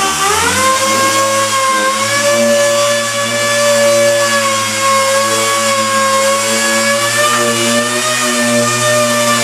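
Power sander running steadily on the car's bodywork; its pitch sags briefly near the start, then holds even.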